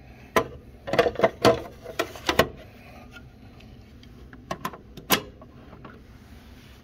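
Sharp clicks and knocks from a hand handling the parts around the coffee outlet of an Egro One coffee machine. There is a quick cluster of about seven in the first two and a half seconds, then three more about four and a half to five seconds in.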